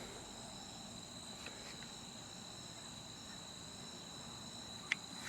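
Faint steady trilling of crickets, with one small click near the end.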